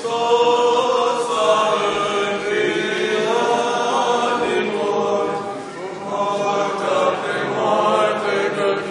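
Orthodox liturgical chant sung by a group of voices, long held notes moving slowly in pitch, easing briefly about six seconds in.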